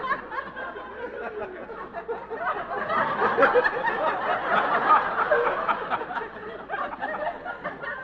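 Studio audience laughing, a long wave of laughter that swells a few seconds in and tapers off near the end.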